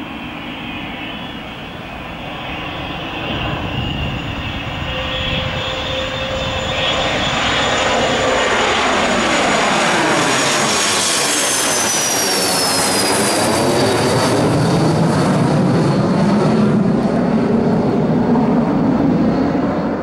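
Gulfstream G150 business jet taking off, its twin Honeywell TFE731 turbofans at takeoff power, growing louder as it lifts off and passes overhead. The high turbine whine falls in pitch as the jet goes by about ten seconds in. After that a deep, steady engine rumble carries on as it climbs away.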